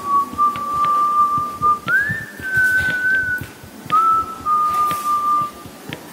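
A whistled melody, most likely part of a background music track: long held notes, one rising glide about two seconds in and a slow fall after about four seconds, over faint light clicks.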